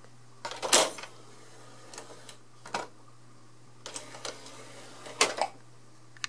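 CD player disc tray opening and closing, its mechanism driven by a rubber band fitted in place of the worn belt. Clunks and clicks come as the tray moves and a disc is set on it, the loudest about a second in and again near the end. A steady low hum runs underneath.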